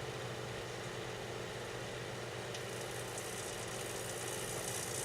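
Daewoo microwave oven running, a steady hum with a faint hiss over it, with a camping flashlight inside it.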